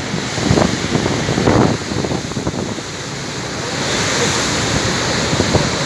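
Giant storm waves breaking, a steady roar of surf with strong wind buffeting the microphone in gusts; the roar grows louder and hissier about four seconds in.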